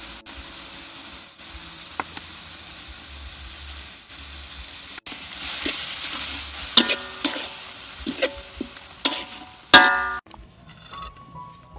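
Minced filling sizzling in a metal wok while a metal spatula stirs it, with several loud scrapes and clanks of the spatula against the wok in the second half. The sizzling cuts off suddenly near the end.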